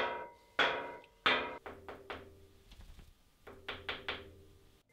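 Hand knocking on the square steel tubes of a welded lathe frame. First come three loud knocks that ring briefly like hollow tubing. From about three and a half seconds in comes a quicker run of softer, duller knocks on tubes filled with a gravel-and-sand mix, which damps the ringing.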